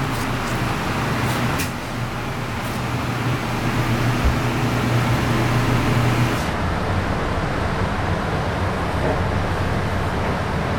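Steady mechanical hum and background noise of a working kitchen, with a couple of light knife clicks on the cutting board about one and a half and two and a half seconds in. The low hum drops away a little after six seconds.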